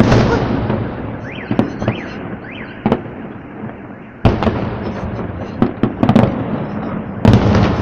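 Aerial fireworks shells bursting in an irregular series of sharp bangs, each trailed by a rolling rumble. A dense volley of bangs comes near the end.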